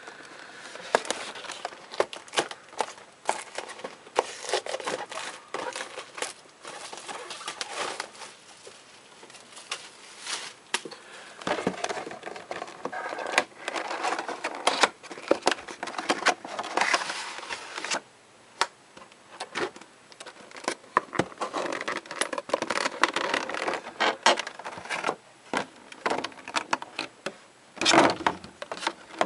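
A trading-card collection box being opened by hand: irregular crinkling, rustling, scraping and small clicks of cardboard and plastic packaging.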